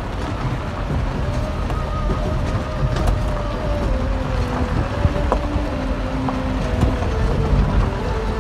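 Moving road vehicle: a steady low rumble with a faint engine hum that drifts slightly in pitch, and a few sharp knocks and rattles.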